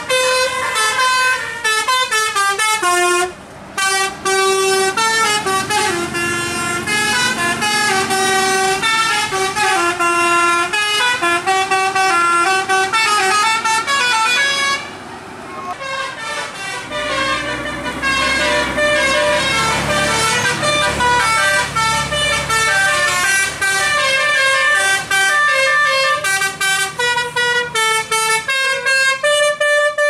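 Basuri telolet bus horn with roof-mounted trumpets playing melodic tunes, its notes stepping up and down several times a second, with short breaks about 3.5 s and 15 s in. From about halfway through, a bus engine rumbles under the horn.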